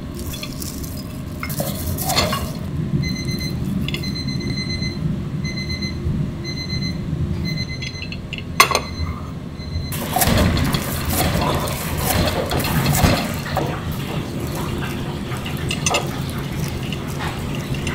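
Kitchen clatter of tableware being handled: a metal wire rack and ceramic serving tray knocking and clinking as they are moved and set down, over steady low background noise. A short electronic beep repeats several times a few seconds in, and a single sharp knock comes about halfway.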